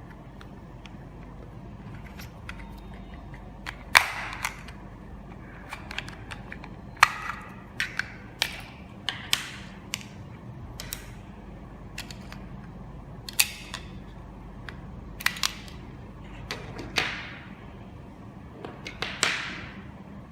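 Irregular sharp plastic clicks and knocks, about a dozen, from handling a battery compartment and its AAA batteries while they are taken out; a few clicks trail off in a short scrape.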